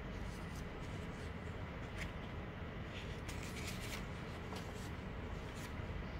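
A sheet of printer paper, taped over watercolour paper, is lifted and laid back down, rustling and crinkling in a few short bursts. The busiest stretch is between about three and four seconds in. A steady low hum runs underneath.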